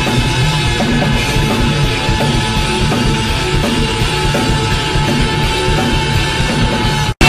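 Loud background music with a steady drum beat that cuts off abruptly near the end.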